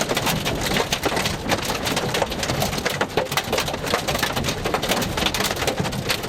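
Heavy rain pelting down, a dense, steady patter of drops hitting a hard surface.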